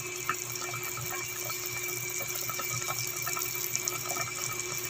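Pot of chicken simmering in broth: a steady hiss with light scattered pops and a faint steady hum.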